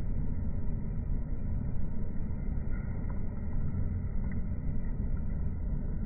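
Steady low rumbling noise with a restless, fluctuating level.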